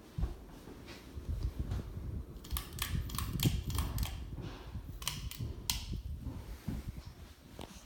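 Hunter Willow Creek ceiling fan running, heard mainly as a low rumble of its air moving over the microphone rather than any motor noise. A run of sharp clicks and rattles comes from about two and a half to six seconds in.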